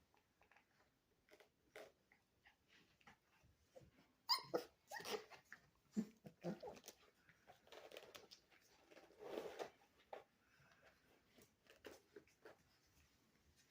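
Four-week-old Rottweiler puppies making faint short whines and grunts, with one sharper high cry about four seconds in. Scattered small knocks run between them.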